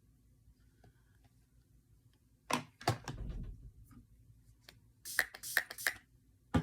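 Handling noises from makeup tools and an eyeshadow palette: a couple of knocks about two and a half seconds in, then a quick run of four sharp clicks near the end.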